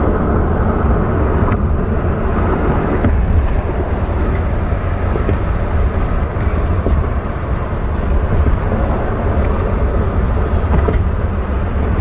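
Steady road noise of a car driving at highway speed: an even, low rumble of tyres and wind.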